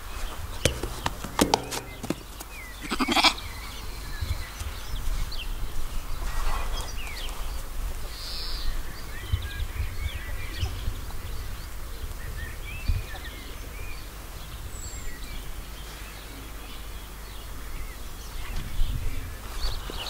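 A sheep bleats once, briefly, about three seconds in, against small birds chirping throughout.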